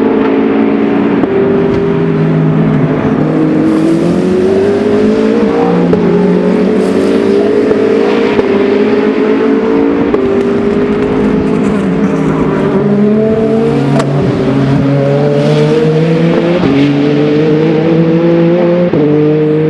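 Race car engines accelerating hard, each climb in pitch cut by a drop at an upshift every second or two, with more than one car heard at once.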